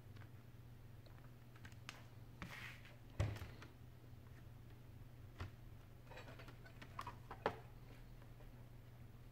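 Scattered plastic clicks and taps from a Samsung N8000 tablet's back cover as it is pressed along the edge so its clips snap into place, with one louder knock about three seconds in. A low steady hum runs underneath.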